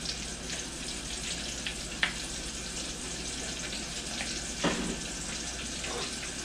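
Cornmeal-breaded bluegill fillets frying in hot oil: a steady sizzle with fine crackles. Two brief knocks, about two seconds in and a louder one near five seconds in.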